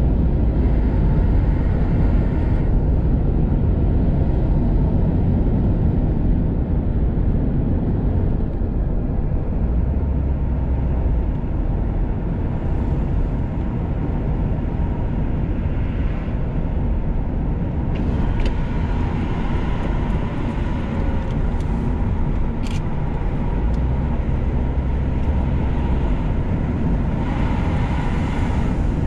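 A car driving along a road: a steady low rumble of tyres and engine. There are a few faint clicks about two-thirds of the way in.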